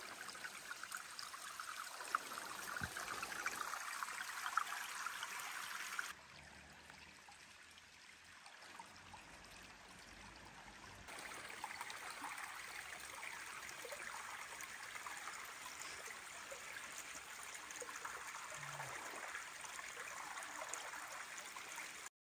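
Small woodland stream trickling and burbling over stones and leaf litter. The water sound drops quieter about six seconds in and comes back louder about eleven seconds in.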